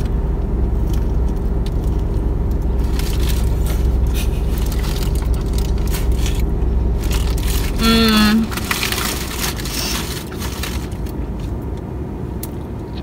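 Eating in a car: fast-food wrapper crinkling and chewing in short scattered bits, over the car's steady low hum, which drops away about eight seconds in.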